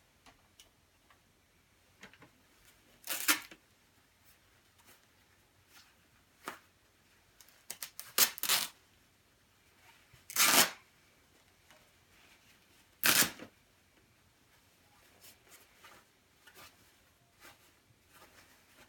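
A black down jacket's fabric being ripped open by hand: about four short tearing rips a few seconds apart, with faint rustling of fabric and stuffing between them.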